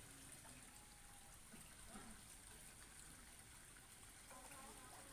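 Near silence: faint background noise, with a few faint, distant voice-like sounds near the end.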